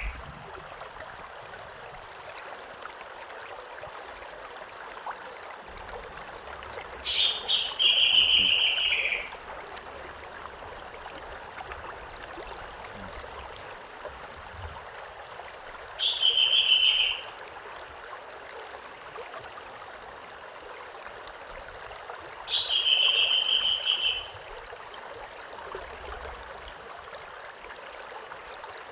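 Steady rushing of river water, with a songbird calling three times over it, each call a short trill lasting one to two seconds.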